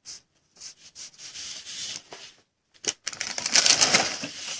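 Foil wrapper of a trading-card pack being torn open and crinkled by hand: a run of irregular rustling and crackling, loudest and densest for the last second and a half.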